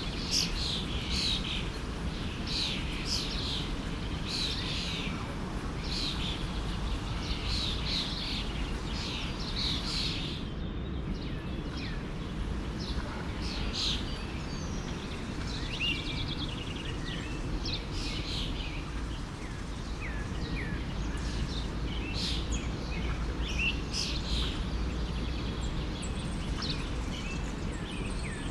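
Forest stream flowing with a steady rush, with many small birds chirping over it in short, quickly repeated calls.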